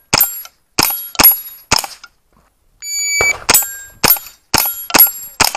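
.22 rimfire AR-15-style rifle (AR15-22) firing rapid shots at steel plates, each shot followed by a short metallic ring from the steel: four shots in the first two seconds. Near three seconds in, an electronic shot-timer start beep sounds, followed by about five more quick shots.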